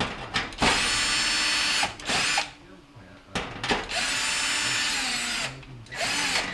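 Power drill-driver running in three short bursts, backing out the screws of a stove's rear cover panel.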